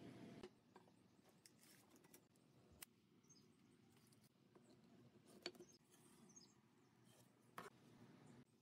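Near silence with a few faint, separate taps as wooden boards and hand tools are set down and handled on a wooden workbench.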